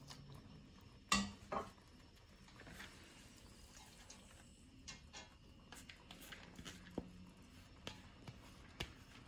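Kitchenware knocking and clinking against a stainless steel cooking pot: two sharp knocks about a second in, then a scatter of lighter clicks while drained rice is tipped from a plastic colander into the pot.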